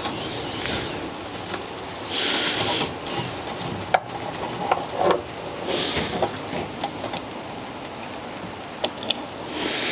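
A C-clamp valve spring compressor being wound off a valve on a BMW M20 cylinder head so the spring lets go onto its collets: scattered metallic clicks and tool-handling rubbing, with a few short rushes of hiss.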